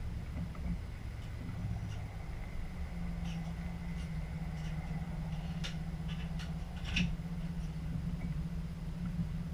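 Diesel multiple unit running, heard from inside the driver's cab: a steady low engine and running drone, with a few short sharp ticks about six and seven seconds in.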